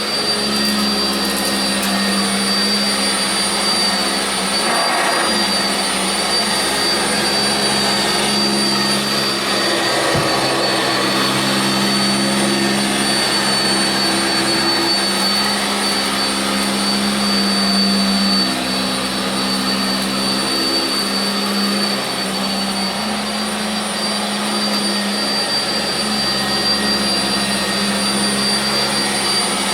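Sanitaire SC679j upright vacuum cleaner running on carpet, a steady motor hum with a constant high whine over it and small rises and dips as it is worked back and forth.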